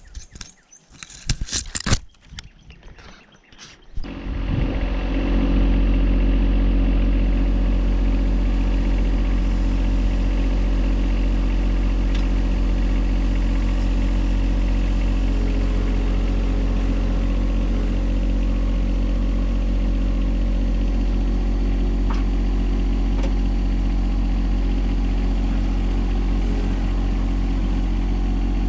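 Tractor engine that comes in about four seconds in, after a few knocks and handling noises, and then runs steadily at a constant speed.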